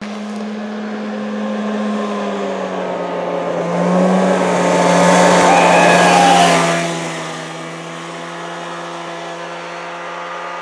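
Homemade go-kart's two-stroke 440 snowmobile engine running at a steady high pitch as the kart drives past. It grows loud from about four seconds in, is loudest as it passes, and drops back near seven seconds as it moves away.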